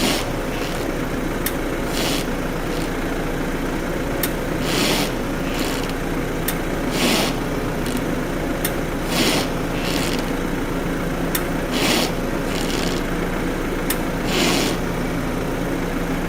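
BMW F10 with its engine running, and a sharp tick followed by a brief rubbing scrape from the right front wheel area, repeating about every two and a half seconds as the wheel slowly turns. This is the click that appears when the steering is turned right; its cause is not known.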